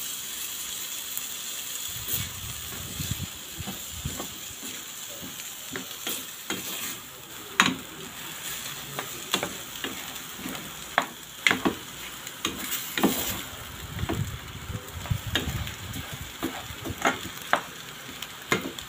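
Bitter gourd and egg sizzling in a metal pan on a gas stove, with a steady hiss. A utensil stirring the pan adds irregular clicks and scrapes against the metal.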